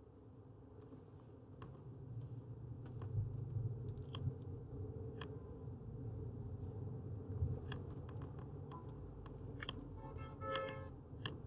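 Scattered sharp clicks from a computer mouse and keyboard, a few seconds apart and bunching up in the second half, over a low steady hum. A brief buzzing tone sounds a little past ten seconds in.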